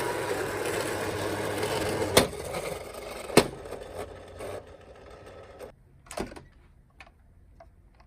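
Toy ambulance being rolled and handled: a rattling whir for about two seconds, then sharp plastic clicks and knocks, the loudest about three and a half seconds in, thinning to a few faint ticks.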